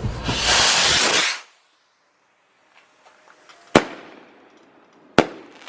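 Consumer fireworks going off: a loud hissing whoosh lasting about a second, then two sharp bangs about a second and a half apart, with another hiss starting near the end.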